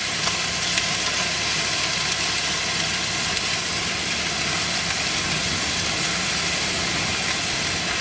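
Chicken strips frying in sesame oil in a hot non-stick skillet: a steady sizzle.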